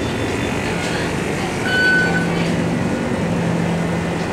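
Steady background din of a convenience store's interior, with a short high beep about two seconds in.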